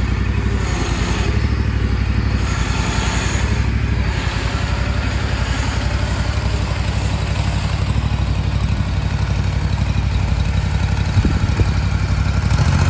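Engine of a remote-controlled crawler slope mower running steadily as the machine drives on its rubber tracks across concrete. Near the end the engine note gets louder.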